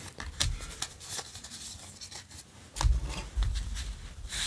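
A stack of Yu-Gi-Oh! trading cards handled by hand, the cards sliding and rubbing against each other with small crisp clicks. A few dull knocks come about three seconds in as the stack is set down on the table and squared.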